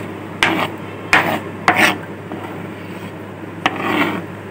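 Knife scraping diced cucumber across a cutting board into a bowl, in about four short scraping strokes, the last one longer and softer.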